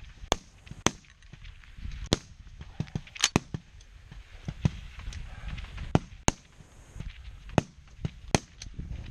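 Rifle shots from a firing line of competitors during a slow-fire prone high-power match: about a dozen sharp reports at irregular intervals, some loud and close, others fainter and farther down the line.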